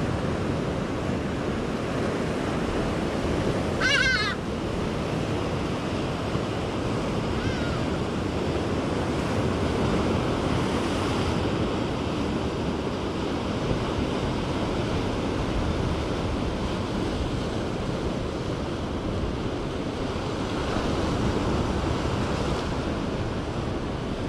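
Surf washing and breaking over a rocky shore, a steady rushing. About four seconds in comes a brief, wavering high call.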